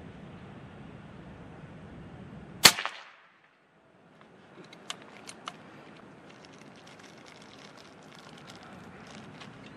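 PCP air rifle in 4.5 mm calibre firing a single shot, a sharp crack about two and a half seconds in, followed a couple of seconds later by a few light clicks.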